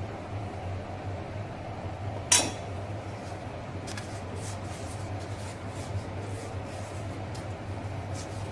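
Kitchen handling sounds while a gujia is filled and pressed in a plastic gujia mold: one sharp click about two seconds in, then a scatter of light clicks and rustles, over a steady low hum.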